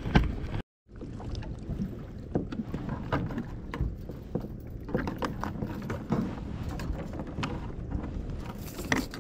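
Water lapping against a fishing kayak's hull, with scattered small knocks and clicks and some wind on the microphone. A brief gap of silence falls a little under a second in.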